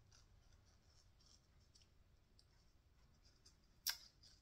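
Near silence with faint clicks of a doll and its small shoe being handled, and one sharper click near the end.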